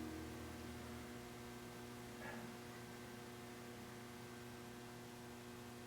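St. Louis Fan Company Swirl Series ceiling fan motor running, giving a faint, steady electrical hum.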